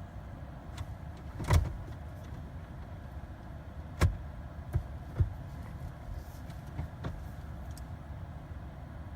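A few short, dull clunks and knocks inside a stalled Jeep with its engine off, the loudest about a second and a half in and another at about four seconds, over a steady low rumble.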